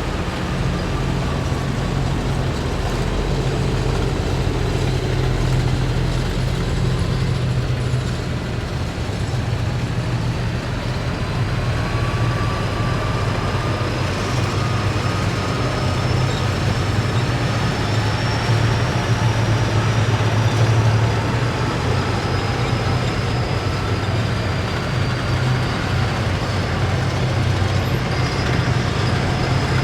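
Heavy military vehicles in a column driving slowly past, their large diesel engines running with a steady low drone. Faint high whines drift slowly in pitch above it.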